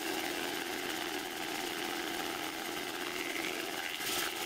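Single-point fly cutter spinning under machine power, cutting the teeth of a small 16-tooth brass gear blank indexed on a dividing head: a steady motor hum with continuous cutting noise, a little louder near the end.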